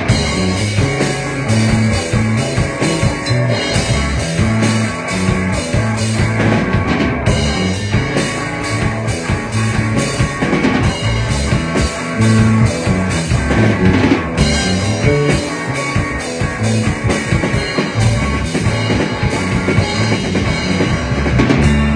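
Rock band playing a song live: a drum kit keeping a steady beat with bass and electric guitar.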